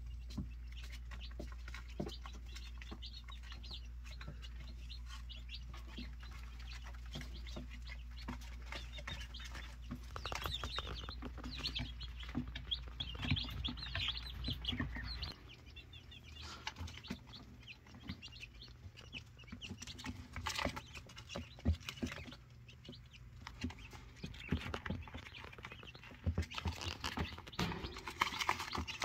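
Young chicks peeping, many short high cheeps overlapping, with light pecking and scratching clicks. A low steady hum runs underneath and stops about halfway.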